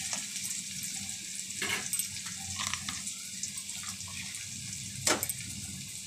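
Garlic frying in hot mustard oil in a steel kadhai, sizzling steadily as it browns, with a couple of sharper pops.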